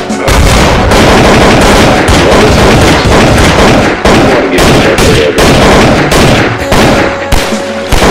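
Automatic fire from several Kalashnikov-pattern rifles, shots coming so fast and overlapping that they run together into a near-continuous rattle with only brief dips.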